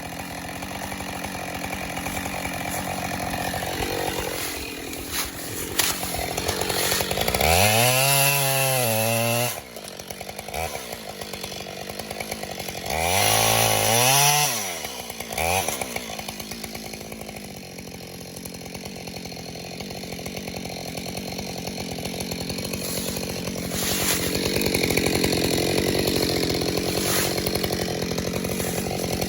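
Two-stroke Husqvarna chainsaw running throughout, revved up hard twice: its pitch climbs and drops back about eight seconds in and again around thirteen seconds, with a short blip of throttle after the second. It then runs steadily, a little louder near the end.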